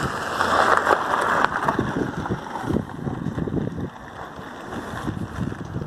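A burning truck loaded with tar: a steady rushing fire noise with a few sharp cracks, loudest in the first two seconds, mixed with wind on the microphone.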